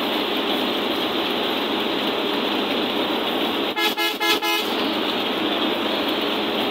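Steady road and engine noise inside a moving bus cabin, with three short horn toots in quick succession about four seconds in.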